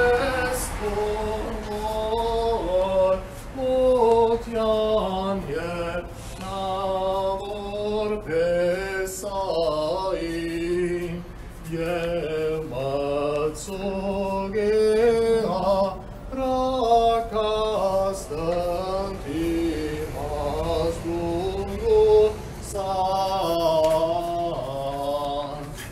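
Unaccompanied Armenian liturgical chant: voices singing a winding hymn melody in short phrases that rise and fall.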